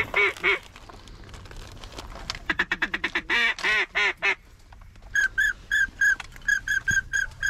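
Duck calls blown in a quick series of quacks, briefly at the start and again about two and a half seconds in. From about five seconds on, a duck whistle gives a run of short, clipped whistle notes, about three or four a second.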